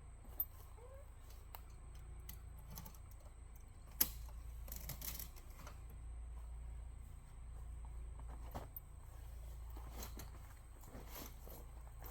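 Scattered small clicks and handling sounds over a low steady hum, the sharpest click at about four seconds.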